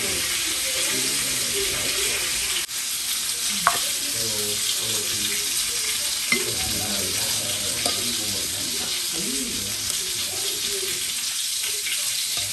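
Steady hiss of a hot pan of garlic stir-fried pea shoots still sizzling after the heat is turned off, with a few sharp clicks of chopsticks against the pan and plate as the greens are lifted out.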